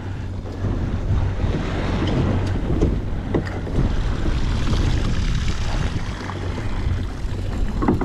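Wind buffeting the microphone and waves washing against the hull over the steady low drone of a fishing boat's engine, with a few light knocks on deck.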